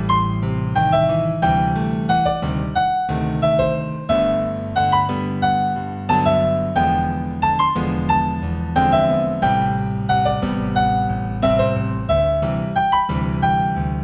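Solo piano playing a slow, gentle new-age piece in G major: a melody of single notes, about two a second, over held low chords.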